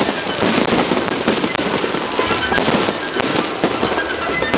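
Fireworks display: a dense, continuous barrage of small aerial bursts and crackling, with no pause between them.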